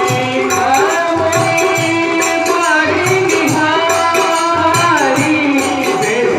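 Hindi devotional song: a gliding melody over a steady drum beat and evenly repeating jingling percussion.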